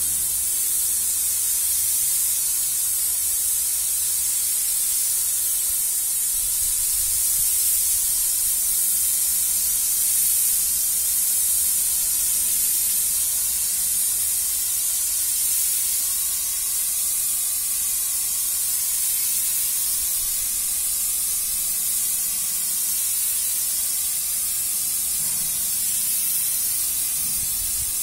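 Gravity-feed air spray gun spraying wall paint: a steady, high-pitched hiss of compressed air atomising the paint, unbroken throughout.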